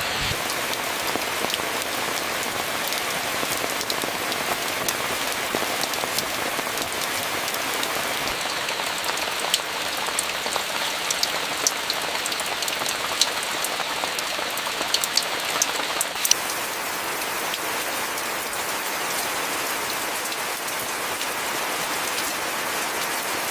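Steady rain falling, an even hiss, with sharp drip clicks of single drops striking a surface through the middle stretch.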